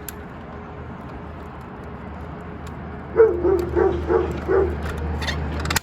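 A dog barking: five short, quick barks about three seconds in, each dropping in pitch, over a low steady hum. A brief burst of clicks comes near the end.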